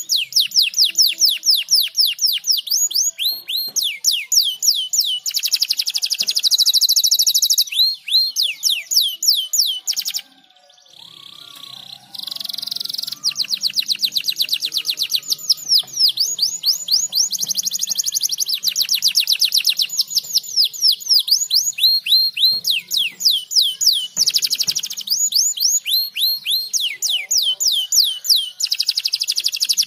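Domestic canary singing: long, rapid trills of repeated downward-sweeping whistled notes, one roll after another, with a brief pause about ten seconds in.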